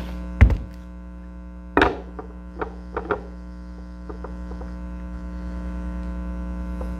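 Steady electrical hum, with a loud knock about half a second in, a second knock near two seconds, and a few lighter clicks and taps soon after: things being handled on a workbench.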